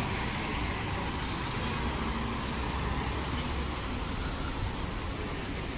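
Steady road traffic noise from vehicles driving along the road.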